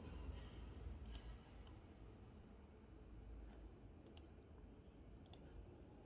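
Computer mouse buttons clicking quietly: one click about a second in, then pairs of clicks around four seconds and just after five seconds, over a faint low hum.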